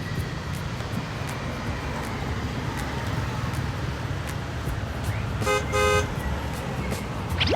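A vehicle horn honks twice in quick succession over a steady low traffic rumble.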